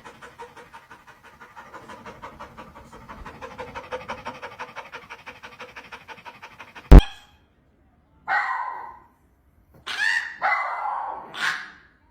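A dog panting in quick, even breaths for about seven seconds. Then, after a sharp click, come three short, higher-pitched sounds.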